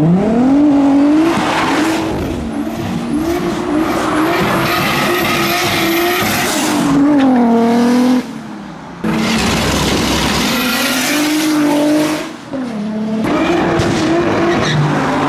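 Toyota Chaser JZX100's turbocharged 1JZ straight-six revving hard while drifting, its note climbing at the start and then rising and falling with the throttle, with tyres squealing and skidding underneath. The sound cuts abruptly a few times, each time picking up again at high revs.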